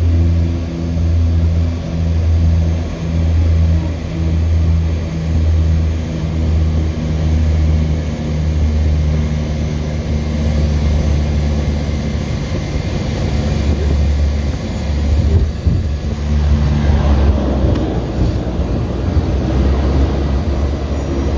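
Seaplane's propeller engines droning loudly as the plane descends to land on the water, heard from the cabin. The drone throbs about once a second at first, then smooths out with more rushing air noise in the last few seconds.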